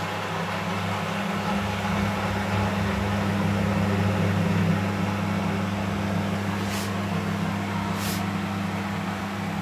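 Beko 5 kg washing machine running with a steady motor hum that swells a little midway, and two brief hisses near the end.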